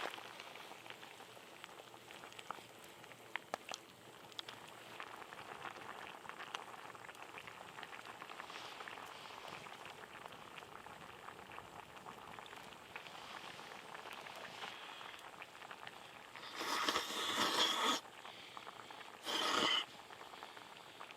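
Shabu-shabu broth simmering, a soft steady bubbling with small scattered ticks. Near the end come two short, louder rushing sounds.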